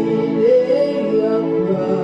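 Praise-and-worship music with singing: held chords under a sung melody that slides up and down.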